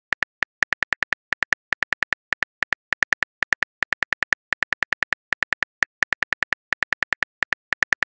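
Phone keyboard key-click sounds tapping rapidly and a little unevenly, about seven clicks a second, as a text message is typed out.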